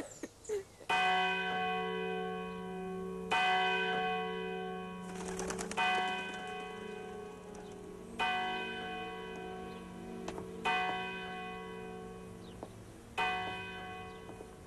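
A church bell tolling: six slow strokes, one about every two and a half seconds, each ringing on until the next.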